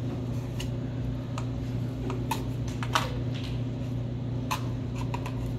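A cardboard toilet paper tube being handled and poked at by hand, giving a few short scattered crackles and taps, over a steady low room hum.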